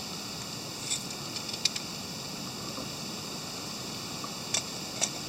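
Trangia spirit burner just lit with a tissue-paper wick, burning under a steady hiss of wind and background noise, with a few small sharp crackles about a second in and again near the end.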